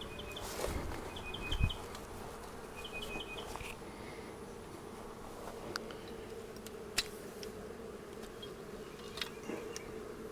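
Honeybees buzzing steadily from an opened hive. Three brief runs of short high chirps come in the first four seconds, and a few light clicks sound scattered through.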